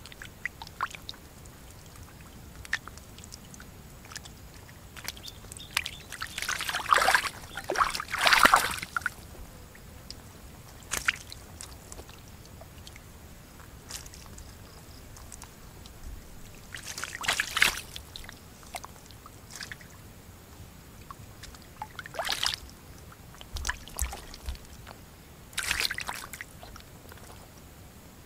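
Eels splashing in a shallow muddy pool: several bursts of sloshing water, the loudest about seven to nine seconds in and again near seventeen seconds, with small clicks and drips between.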